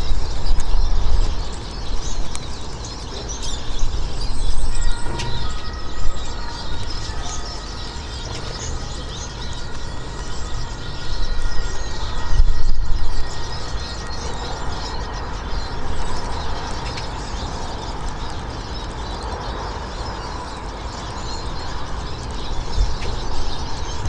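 Outdoor background rumble that swells and fades, with small birds chirping faintly and a few steady high tones for several seconds in the middle.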